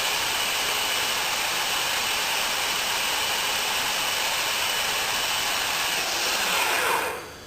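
Metabo MAG 28 LTX 32 cordless magnetic drill's motor running steadily at speed, then winding down and fading out near the end.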